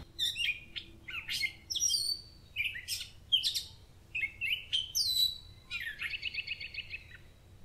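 Songbirds chirping and singing in short whistled phrases, with a rapid trill of quickly repeated notes about six seconds in.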